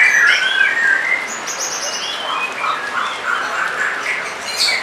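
White-rumped shama (murai batu) singing a continuous, varied song of short whistled and chattering phrases, with a fast high trill about a second and a half in.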